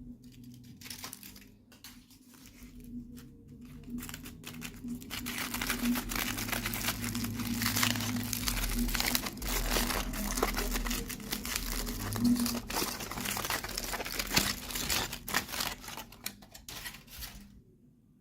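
Packaging being handled and opened: irregular crinkling and tearing of wrapping, busiest through the middle and stopping shortly before the end. A faint steady hum sits underneath.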